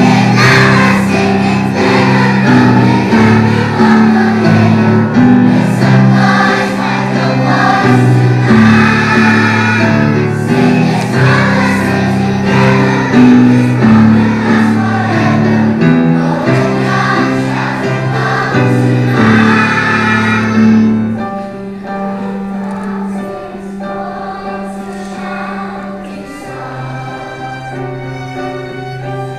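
Large children's choir singing a pop ballad, accompanied by a string quartet and piano. About 21 seconds in, the music drops to a softer passage.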